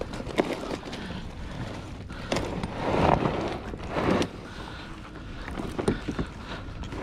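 Wind buffeting the microphone and water sloshing around a kayak on the open ocean, with a few sharp clicks and some swells of louder rushing noise.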